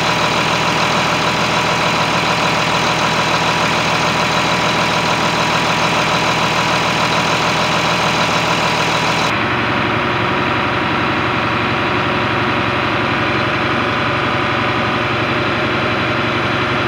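John Deere 4440's turbocharged six-cylinder diesel running steadily at idle while the rebuilt A/C system is charged and tested. About nine seconds in, the sound changes abruptly to a duller, more muffled version of the same running, heard from inside the cab.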